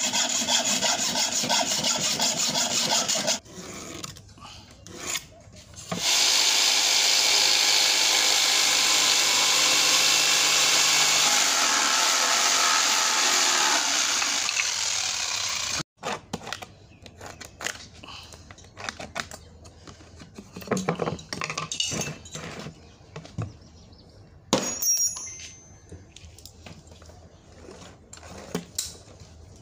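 A hand hacksaw cuts a threaded metal rod in quick strokes. After a short pause, an electric jigsaw runs steadily for about ten seconds, cutting a thin wooden board, and stops abruptly. Then come quieter scratching and small clicks as a pen marks a plastic bucket lid, with one sharp clink late on.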